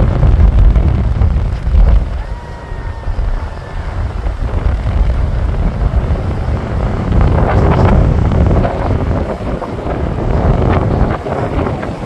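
Heavy surf breaking on a sandy beach, mixed with strong wind buffeting the microphone. The rumble is loudest in the first two seconds, eases, then swells again a little past the middle.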